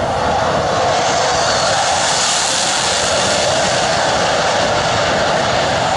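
Single-engine KAI FA-50 light fighter jet making a low flypast, its General Electric F404 turbofan giving a loud, steady rush of jet noise. The hiss grows sharpest about two to three seconds in as the jet passes closest.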